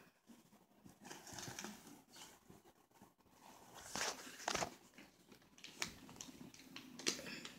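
A plastic bag crinkling and rustling as it is handled, with a few sharp crackles.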